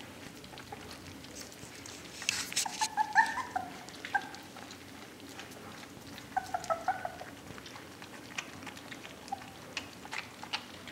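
Young puppies eating moistened food from a plate, with wet lapping and chewing clicks. Short, high puppy squeaks and whimpers come about two seconds in and again a little after six seconds.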